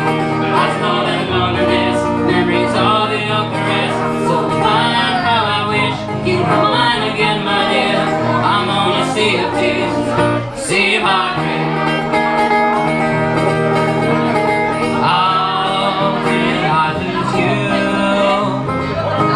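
Live country song: a man and a woman singing together over a strummed acoustic guitar, with a brief break about halfway through.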